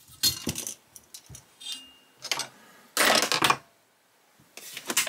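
Clinks and rattles of a metal screwdriver and a diecast model car body being handled on a work mat, a few short separate knocks with a louder clatter about three seconds in.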